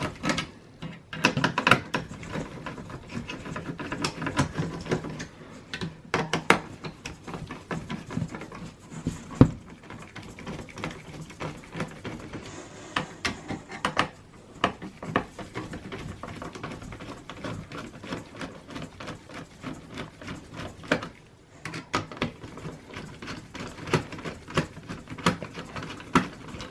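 Phillips screwdriver backing out the screws of a desktop PC's processor heatsink. It makes many irregular small clicks, ticks and scrapes of metal and plastic being worked by hand.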